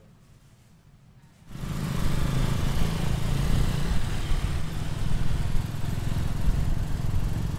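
Faint room tone, then about a second and a half in a small motorised rickshaw's engine comes in suddenly, running loud and rough with road noise as it rides.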